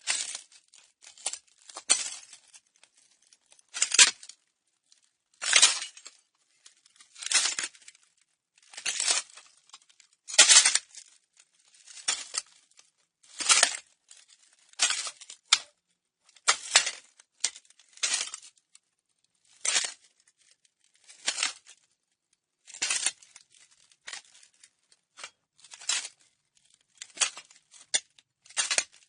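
Slow footsteps crunching on broken glass, one step about every one and a half to two seconds, each a gritty crunch with small shards clinking and crackling after it.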